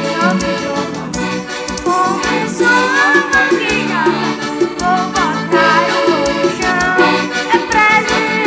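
Two accordions playing a lively tune together, with sustained chords, a moving melody and a steady rhythmic bass beat.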